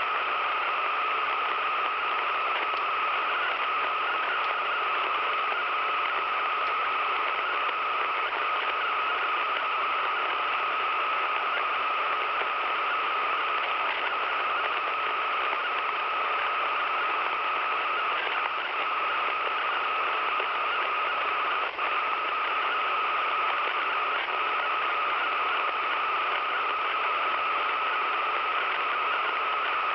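Radio receiver putting out steady static hiss with a constant mid-pitched tone running through it, the kind of noise a radio makes on an unclear or interfered channel. The sound cuts out for an instant about two-thirds of the way through.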